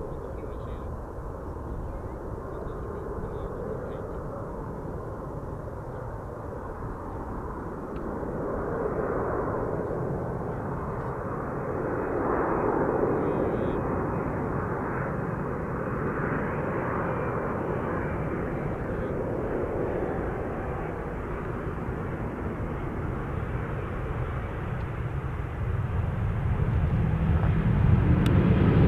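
Boeing 787-10 Dreamliner's jet engines on final approach, a steady rushing drone that slowly grows louder as the airliner comes in low. Near the end it sharpens and brightens as the main wheels touch down on the runway.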